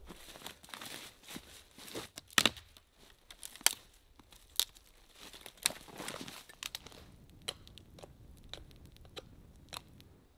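Boots crunching through thin snow over dry brush, with sharp cracks of twigs and sticks snapping, the loudest about two and a half and three and a half seconds in. After about seven seconds only scattered single snaps remain.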